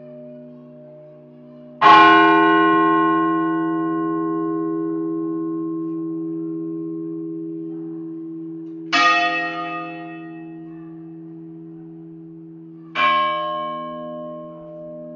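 A bell tolling: three strikes, the first the loudest, the next about seven seconds later and the last four seconds after that. Each strike rings on in a long, slowly fading, wavering hum.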